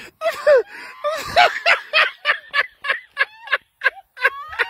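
Hysterical, cackling laughter from people close to the microphone: a quick run of high, breathy 'ha' bursts, about four a second.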